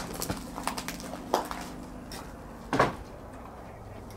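Footsteps and knocks on old wooden floorboards and loose planks: a handful of separate knocks, the loudest nearly three seconds in.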